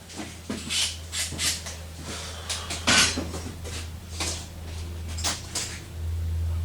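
Metal hand tools clinking and clattering as they are handled and sorted, with a sharp clank about three seconds in, over a steady low hum.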